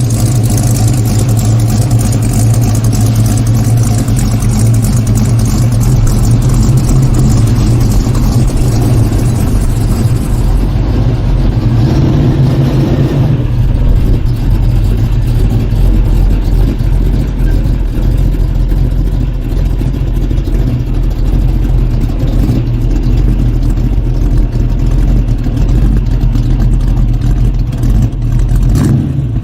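Ford Mustang's engine and exhaust running as the car drives along, a steady deep drone; some higher hiss drops away about halfway through.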